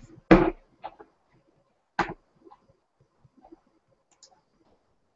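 Handling noise from a product box being opened: a few sharp knocks and clicks, the loudest about half a second in and another about two seconds in, then faint scattered ticks.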